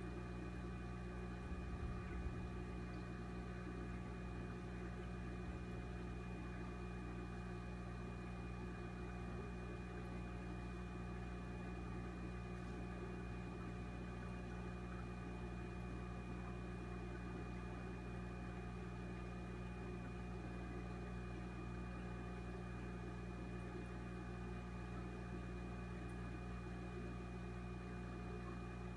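Aquarium equipment running with a steady, even hum.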